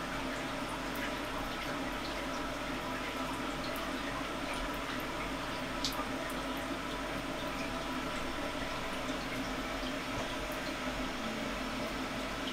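Steady hum of a CNC vertical mill at rest, with coolant trickling and dripping in the enclosure and a few faint ticks.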